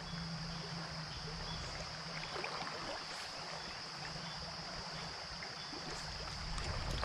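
Shallow creek water running over a gravel bed, a steady rushing, with a constant high-pitched drone above it.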